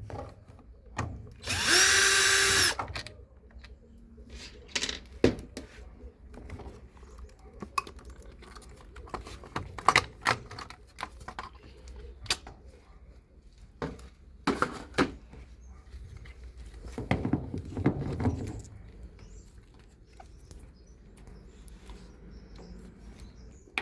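Electric screwdriver running briefly about two seconds in, backing out a screw. It is followed by scattered clicks and knocks as the screws and plastic panel parts are handled.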